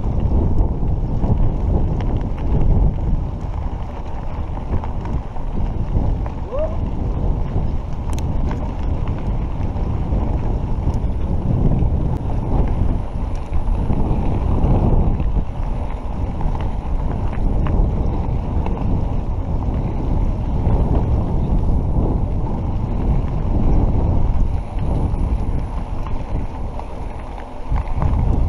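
Steady low rumble of wind buffeting the microphone of a camera riding on a mountain bike along a dirt road, mixed with the bike's rolling noise.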